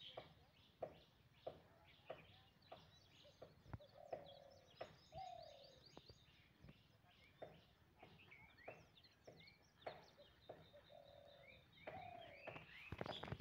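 Faint birds chirping, with a few lower calls, over soft footsteps that come at an even walking pace.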